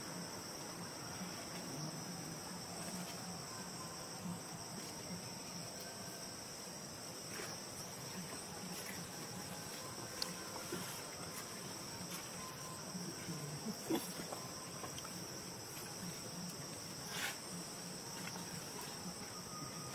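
Steady high-pitched drone of insects, with a few faint ticks and taps scattered through.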